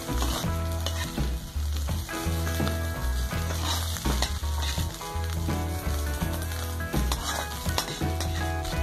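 Fried rice sizzling in a steel wok as a metal spatula stirs and scrapes through it, with short scraping strokes of the spatula on the wok. Background music with steady low bass notes plays underneath.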